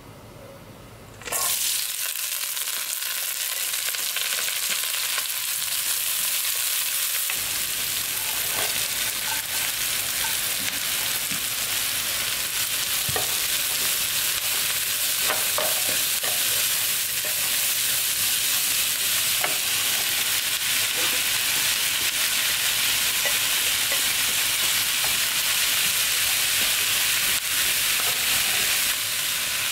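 Chopped onion, green onion and zucchini frying in hot perilla oil in a nonstick wok: a loud sizzle starts suddenly about a second in as the vegetables meet the oil and then runs steadily, with the scrapes and taps of a wooden spatula stirring them against the pan.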